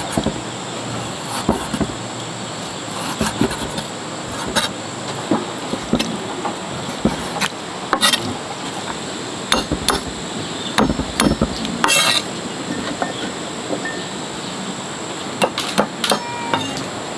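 Large knife slicing chicken gizzards and hearts on a thick round wooden chopping block: irregular knocks of the blade striking the wood.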